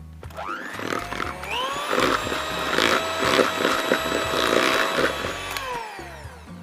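Philips electric hand mixer spinning up, running steadily with its beaters clattering in a bowl of butter and vanilla sugar being creamed until fluffy, then winding down near the end.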